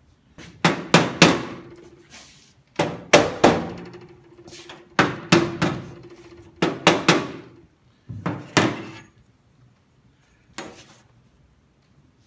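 Mallet blows on the clamped steel door bottom, in five quick groups of about three hits each, a group every couple of seconds, with the sheet metal ringing after each hit, then one lighter tap near the end. The tapping works the butt-welded patch panel into alignment under the clamp.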